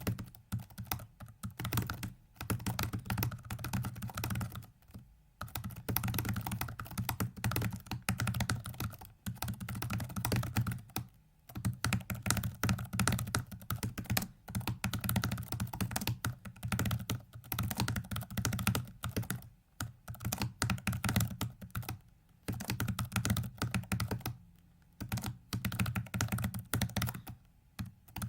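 Computer keyboard keys pressed in rapid, dense runs, turning a virtual 4x4x4x4 hypercube puzzle during a speedsolve. The runs are broken by a few short pauses, about 5, 11 and 20 seconds in.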